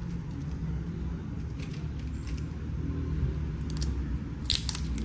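A steady low rumble, with a few sharp, light clicks near the end from small tools and parts being handled during a phone screen replacement.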